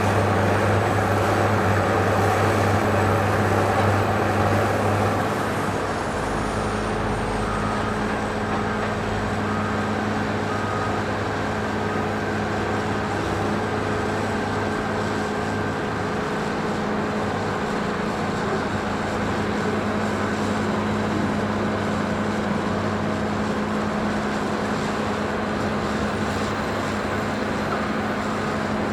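Construction site ambience: a heavy engine running steadily under a general clatter of noise, a little louder for the first five seconds or so before settling at a constant level.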